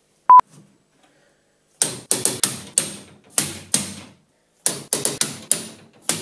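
A short beep tone, then sharp metallic knocks in two quick runs, about three or four strikes a second: hammer blows on metal.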